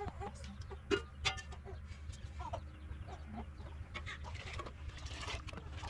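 Chickens clucking now and then, with two sharp metallic clinks about a second in as a pot lid is handled, over a steady low hum.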